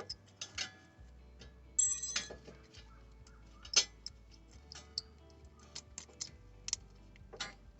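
Metal brake pad clips being handled and snapped into place on a front brake caliper bracket: a run of irregular sharp clicks and clinks, with one ringing metallic clink about two seconds in.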